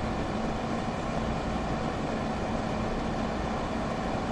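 Steady mechanical hum with a constant low tone over an even rushing noise.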